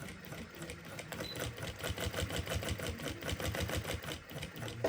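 Jack H6 industrial sewing machine stitching, its needle strokes making a fast, even mechanical ticking, with a sharp click near the end.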